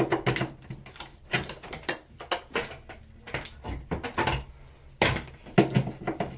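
Handling noise: a quick, uneven run of short clicks, taps and knocks as objects are picked up and set down at close range.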